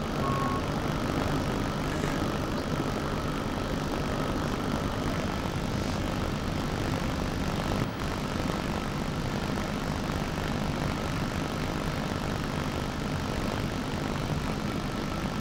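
Steady drone of a bus engine and road noise, heard from on board while riding slowly in city traffic.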